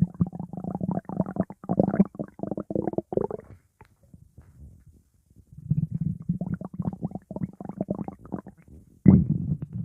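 Stomach growling: rapid gurgling rumbles in two runs with a quieter lull between them, and a louder rumble near the end.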